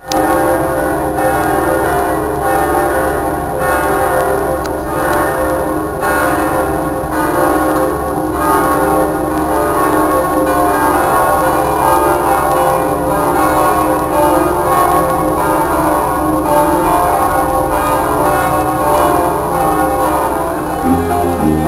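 Cathedral bells pealing, several bells ringing together in a dense, continuous clangour. Near the end a brass band cuts in.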